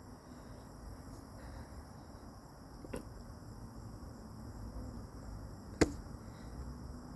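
Two sharp clicks or knocks about three seconds apart, the second much louder, over a faint steady background with a thin high-pitched hiss.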